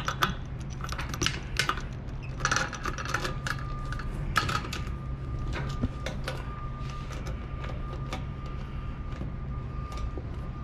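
Sharp metal clicks and clinks of a KF25 clamp and centering seal being fitted around the flange joint of a stainless steel bellows hose, thick at first and sparser later. A steady low hum runs underneath, and a faint steady high tone joins about three seconds in.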